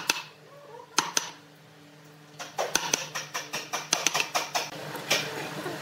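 Wood chisel being struck to chop out a square mortise in a wooden slab. Two sharp knocks come about a second in, then a quick run of lighter taps, about five a second, from a little before halfway.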